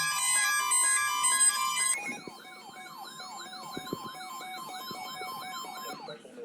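A bright synthesized tune plays for about two seconds, then cuts off and gives way to a quieter electronic siren. The siren rises and falls in pitch quickly, about two to three times a second, and fades out near the end.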